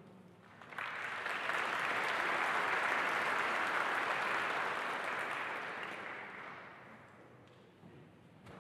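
Audience applauding. The clapping starts suddenly about a second in, holds steady and then fades away over the last few seconds.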